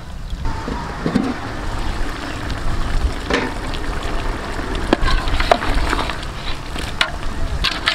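Duck curry being stirred with a long-handled utensil in a large aluminium pot: a wet stirring and scraping with several sharp knocks of the utensil against the pot. A steady low rumble runs underneath.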